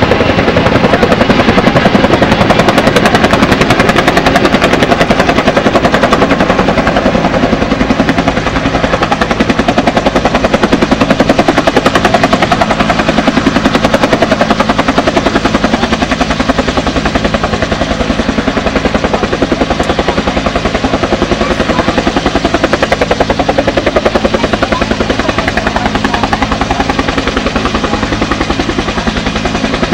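Firefighting helicopter running close by, its rotor blades beating out a loud, rapid, steady chop.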